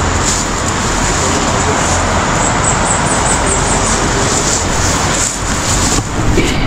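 Steady loud rushing noise with a few brief rustles, as of leaves and stalks brushing past while someone walks through dense undergrowth.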